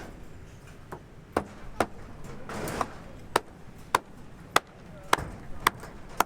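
Repeated hammer blows on a building site, a sharp knock about every half second to second, each with a short ring, and a brief scraping rush partway through.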